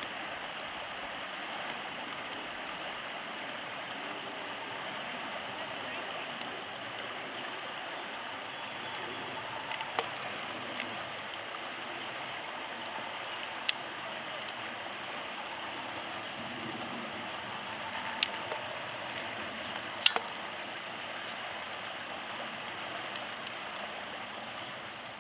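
A shallow, low-running stream rushing steadily over a rocky riffle. From about halfway on, a few short, sharp knocks stand out above the water.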